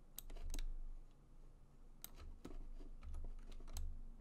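Irregular clicks of computer keyboard keys and mouse buttons: a quick group of three near the start, then scattered single clicks from about two seconds in, some with a dull low knock.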